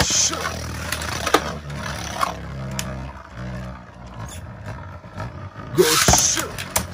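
Beyblade Burst tops launched with a string launcher into a plastic stadium: a loud rip of the launcher at the start, then one top spinning alone with a steady whir and occasional clicks. About six seconds in comes a second loud rip as another top is launched into the stadium.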